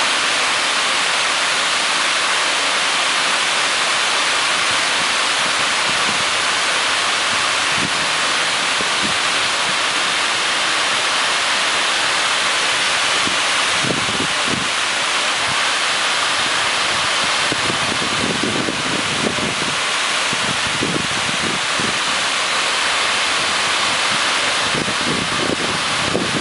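Water falling in many thin streams down a concave fountain wall and splashing into the pool below: a steady, loud hiss of splashing water. A few soft low bumps in the second half.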